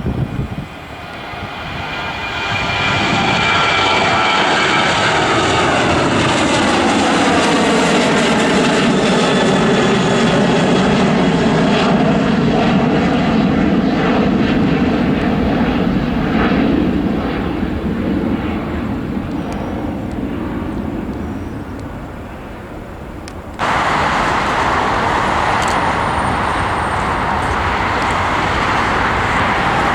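An airliner's engines passing close by: the sound builds over a few seconds, its whining tones slide down in pitch as it goes past, and then it fades. Near the end it cuts suddenly to a steady rushing noise.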